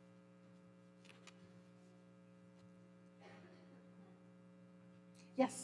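Steady low electrical mains hum on the sound system, with a couple of faint clicks about a second in.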